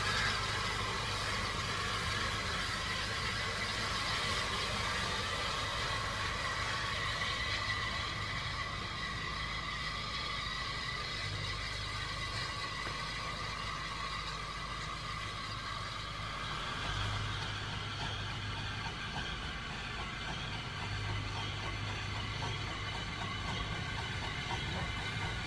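Small steam tank locomotive working slowly, a steady hiss of steam over a low rumble; the hiss weakens after about eight seconds.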